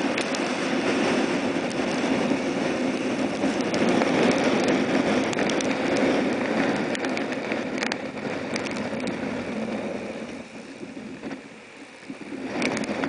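Hurricane-force wind blowing hard across the microphone, a steady rushing noise with rain spatter and waves breaking on a rock breakwall. It eases for a moment about ten seconds in, then gusts back.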